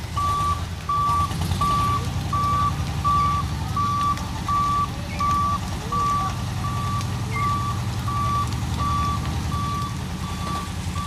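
Reversing beeper sounding a steady train of evenly spaced beeps at one pitch, over the low rumble of the SUV's engine as it backs slowly onto a ferry ramp.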